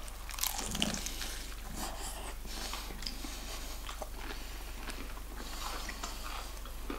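Biting into and chewing crispy KFC fried chicken, with crunches of the breaded crust, the strongest in the first second.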